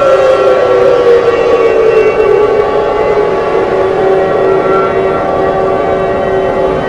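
Civil-defence-style alert siren sound effect. Its wailing tone glides down over the first couple of seconds and settles at one pitch beside a second steady tone, under a dense chord of steady higher tones and a rushing noise.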